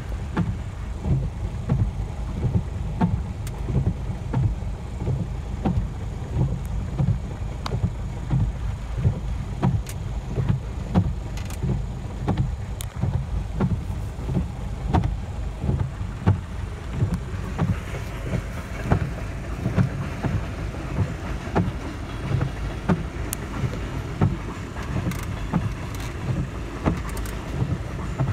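Coal train's hopper cars rolling past: a steady low rumble with many sharp clicks and knocks. Heard from inside a car's cabin.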